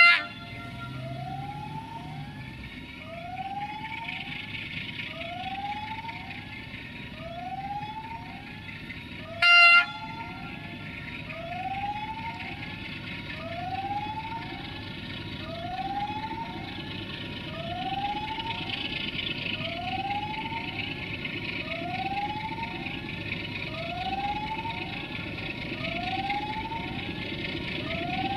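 060-DA (LDE2100) Sulzer diesel-electric locomotive approaching under power with its freight train, its engine growing a little louder, and one short horn blast about nine and a half seconds in. Throughout, a warning tone rising in pitch repeats about every one and a half seconds.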